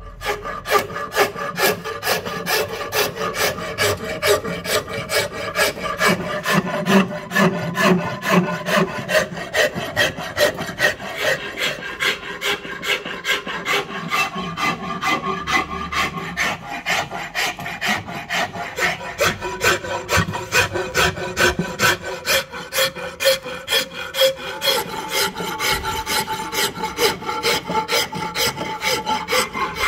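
Long metal file rasping along a wooden axe handle, shaping it with a steady run of quick back-and-forth strokes.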